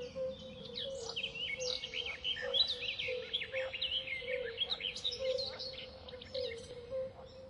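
A chorus of small birds chirping and twittering with many short, quick notes, over a low note that repeats a few times a second.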